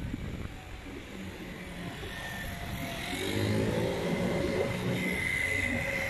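A motor vehicle accelerating past on a city street: its engine note comes up about three seconds in and fades again, followed by a thin, steady high whine near the end.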